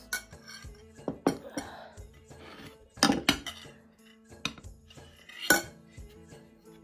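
A metal spoon clinking and scraping against a ceramic serving bowl and plate as food is served onto the plate. There are several sharp separate clinks, the loudest near the middle and again toward the end.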